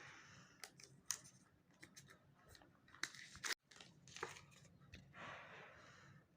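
Faint handling noises: scattered clicks and taps with short bursts of rustling, and a longer rustle about five seconds in.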